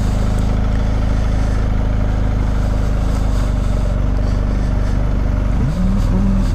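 The boxer-twin engine of a 2020 BMW R1250GS running at low speed with a steady low rumble. Near the end a short pitched tone rises and wavers briefly.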